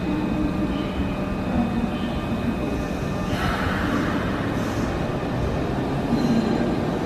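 Nankai 8300 series electric train slowing as it pulls into the platform: a steady rumble of wheels and running gear with faint steady motor tones. A short hiss comes a little past three seconds in.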